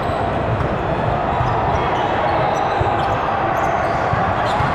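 Basketball game sounds in a gym: a ball bouncing on the court and short high sneaker squeaks over a steady din from the hall.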